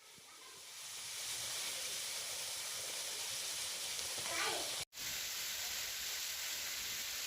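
Waterfall rushing in a steady hiss that fades in over the first second. A short voice is heard a little after four seconds in, and the sound drops out for an instant just before five seconds.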